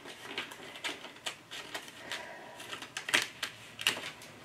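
Cardstock and patterned paper being bent and handled, with irregular crackles and sharp clicks as a glued paper panel is peeled away from a kraft card base. The loudest snaps come about three and four seconds in.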